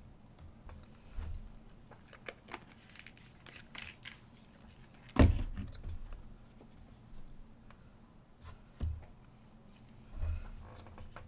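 Plastic craft bottles and caps handled on a wooden tabletop: scattered light clicks and taps, with one sharp knock about five seconds in as a bottle is set down, and two softer knocks later on.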